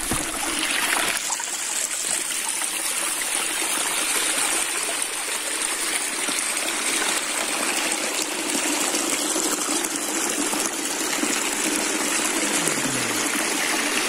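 Small waterfall trickling and splashing over mossy rock into a rock pool: a steady rush of running water.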